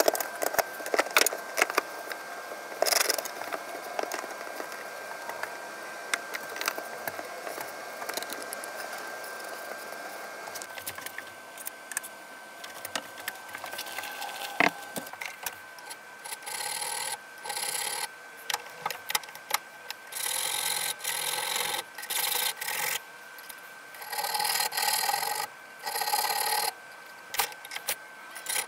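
Clicks and knocks of corner clamps and wooden boards being handled. From about halfway in, a hand file rasps in repeated strokes of about a second each against a drill bit fitted with a countersink collar.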